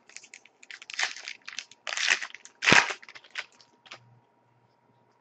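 A Panini Rookie Anthology hockey card pack being torn open and its shiny wrapper crinkled by hand. The crackly rustling comes in irregular bursts, loudest in the middle, and stops about four seconds in.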